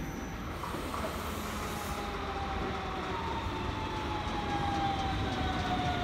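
Red DB regional electric multiple unit pulling into the station and braking. Its electric drive gives a whine that falls slowly in pitch over the second half, over a steady rumble of wheels on the rails.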